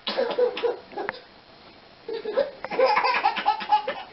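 Baby laughing: a short burst of laughter, a pause of about a second, then a longer run of quick laughs.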